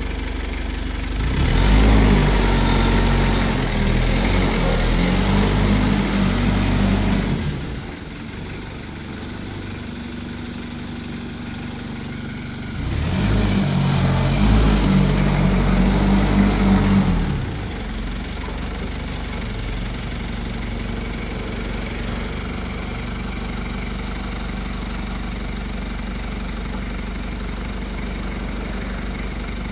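TCM FD25 forklift's diesel engine running steadily at idle, revved up twice for a few seconds each time, near the start and about halfway through, before settling back to idle.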